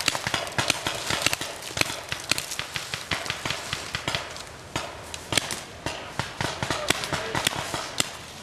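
Paintball markers firing in sharp, irregular pops and cracks, several a second, with footsteps crunching in dry leaves.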